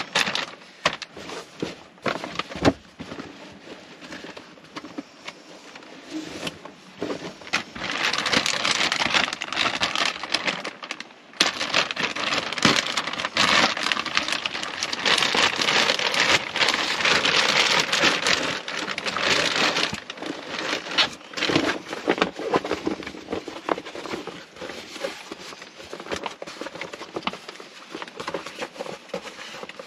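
Plastic wrapping crinkling and rustling as a rolled bundle of bedding is handled and unwrapped, with scattered sharp taps and knocks. The rustling is densest and loudest through the middle of the stretch.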